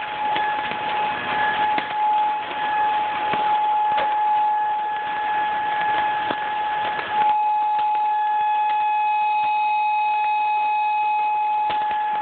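Outdoor tornado warning siren sounding one steady, unbroken tone. It sounds over a rushing background that thins out about seven seconds in.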